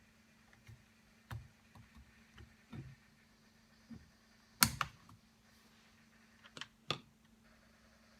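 Scattered sharp clicks and knocks of tools and parts being handled during a hammer drill repair. The loudest is a single hard knock about four and a half seconds in, followed by two more close together near seven seconds.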